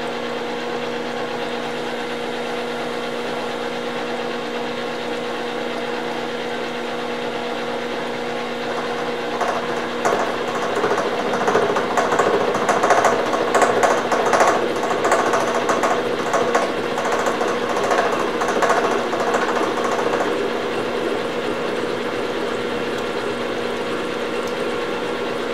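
Milling machine running a gear cutter through a spur gear, a steady hum. From about ten seconds in to about twenty the cut grows louder and rougher with a rapid crackling chatter as the cutter works through the tooth space, then it eases back to the steady hum.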